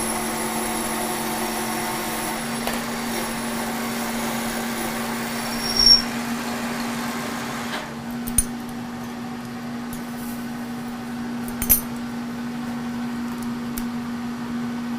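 Kearney & Trecker horizontal milling machine, rigged as a lathe, running with its power feed taking a turning cut: a steady hum with a cutting hiss that fades away about eight seconds in. A few sharp clicks or knocks break through, the loudest near the middle.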